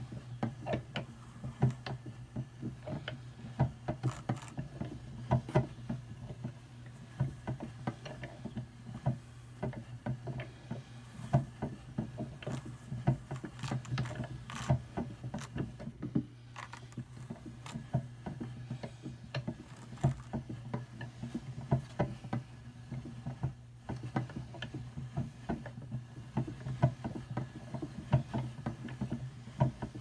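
Hand-cranked Brother Standard drum carder with fine carding cloth turning while it cards targhee wool and Angelina sparkle: a steady low hum of the turning drums with many irregular light clicks and crackles as the fiber catches on the wire teeth.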